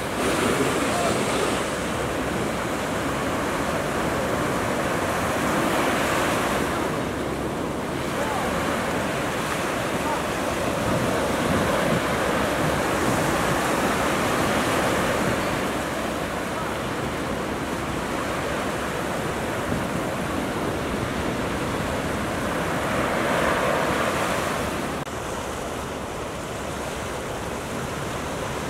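Ocean surf: waves breaking and whitewater washing in, a steady rush that swells louder every several seconds.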